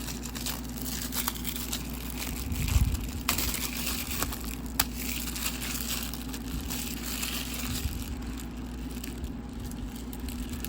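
Plastic shrink-wrap being torn and peeled off a DVD case, crinkling and crackling with a few sharp clicks.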